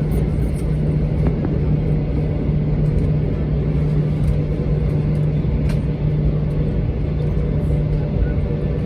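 Airbus A321-200 cabin noise while taxiing after landing: a steady low rumble with a constant low hum from the engines and air system.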